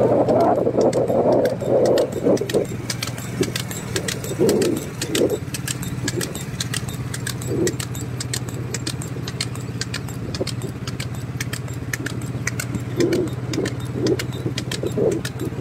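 Motorcycle engine running at a steady speed, with a fast, continuous clatter of clicks over it and a few louder rough bursts in the first two seconds and near the end.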